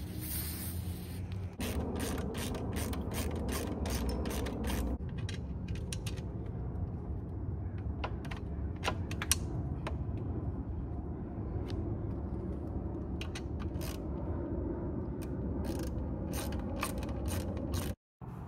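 Hand socket ratchet clicking in quick runs as bolts are wound in, fastening an aftermarket intercooler into a car's front end.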